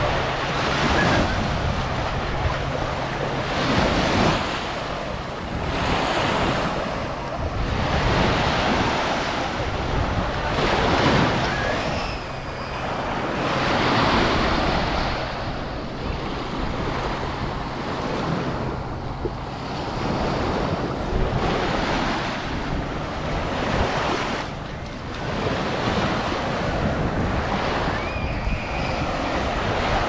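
Small waves washing up onto a sandy shore, swelling and falling back every two to three seconds, with wind rumbling on the microphone.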